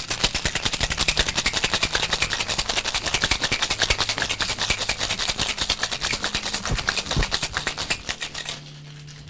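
Ice rattling in a steel cocktail shaker shaken hard with rapid, even strokes, stopping suddenly near the end. The Pisco Sour is being chilled and its egg-white foamer whipped to a froth.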